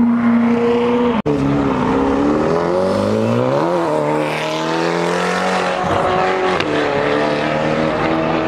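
High-revving Ferrari engines accelerating past: first a Ferrari 458 Italia's V8, then, after a brief break in the sound, a Ferrari GTC4Lusso. The engine note climbs in pitch a few seconds in and then holds high and steady.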